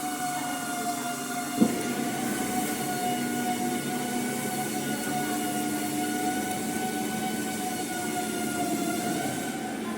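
Milling cutter (facing tool) of a WP450A 450 mm HDPE butt fusion welding machine running: a steady whine that holds one pitch, with a single knock about a second and a half in.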